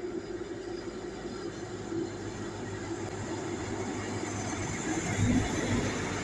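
Class 166 Turbo diesel multiple unit approaching along the platform, its underfloor diesel engines and wheels on the rails growing steadily louder as it draws alongside, loudest about five seconds in.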